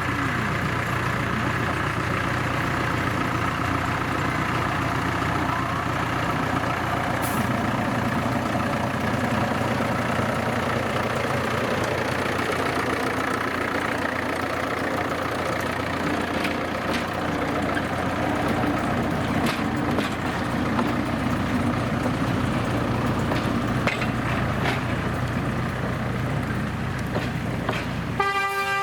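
Diesel locomotive of a narrow-gauge forest railway running steadily, its engine droning with some light clicks and rattles. Its horn starts sounding just before the end.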